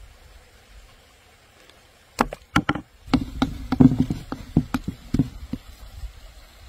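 Wooden spoon mixing a soft dough in a carved wooden bowl. It starts about two seconds in with a few sharp knocks of spoon on bowl, then a quick run of knocks and wet squelches of the dough, which stops a little after five seconds in.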